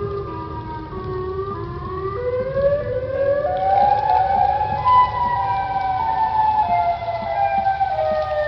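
Several outdoor civil-defense warning sirens wailing together, their overlapping tones dipping, then rising from about two seconds in to a peak near the middle and slowly falling again.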